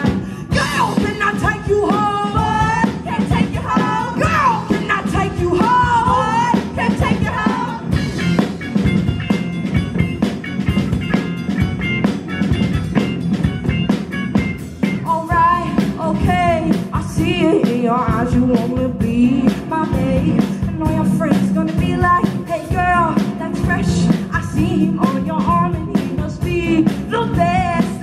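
Live rock band playing: electric guitars, bass guitar and drum kit, with a lead line that bends and wavers in pitch over a steady beat.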